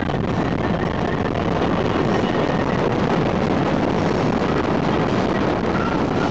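Motorboat under way: a steady rush of engine and water noise, with wind on the microphone.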